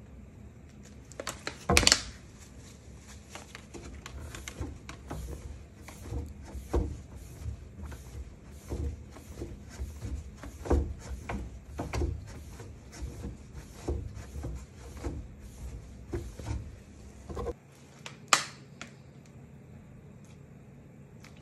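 A letterpress ink roller being wiped clean with a rag as it rests in a wooden crate: irregular knocks and clunks as the roller is handled and turned, one to two a second, the loudest about two seconds in. The handling noise stops about four seconds before the end, with one more sharp knock after it.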